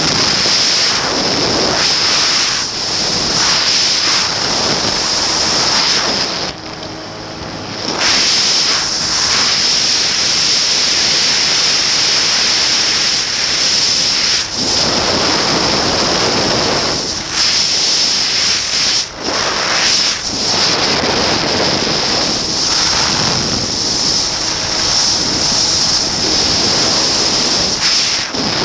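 Loud, steady wind rush on the microphone of a Pegasus Quantum 912 flexwing microlight trike in flight, with its Rotax 912 engine running underneath. The rush eases for about a second and a half around seven seconds in.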